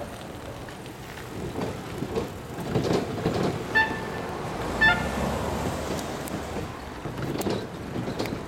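Passing vehicle noise with two short, high horn toots about a second apart midway through.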